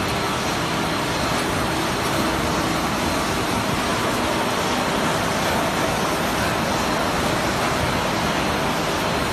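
Automatic facial tissue bag-packaging machinery running in a factory hall: a steady, even mechanical noise with a faint high steady tone, and no distinct strokes standing out.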